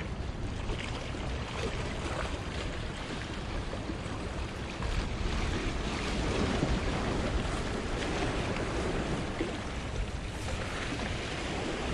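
Small waves washing and splashing against the rocks of a jetty, swelling louder about halfway through, with wind rumbling on the microphone.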